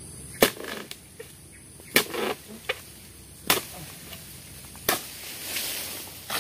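Harvesting chisel on a long pole chopping into an oil palm's frond bases and fruit-bunch stalk: four sharp strikes about a second and a half apart.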